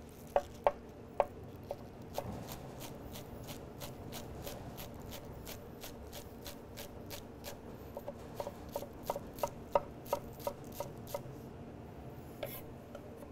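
Chef's knife slicing scallions on a wooden cutting board: a few separate knocks of the blade on the board, then a steady run of quick taps, about three a second.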